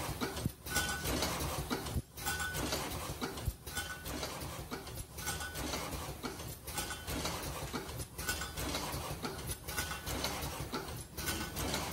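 Automatic crossed-ear-loop face-mask making machine running: steady clattering and clicking of its moving mechanisms. The pattern repeats in a cycle about every one and a half seconds.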